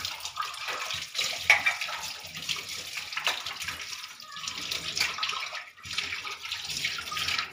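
Water running from a kitchen tap and splashing into a steel sink as steel tea glasses are rinsed under it.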